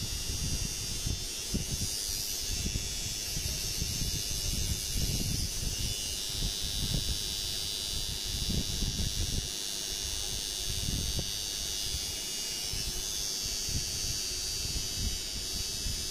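Tattoo machine running steadily with a high-pitched whir, over irregular low rumbles.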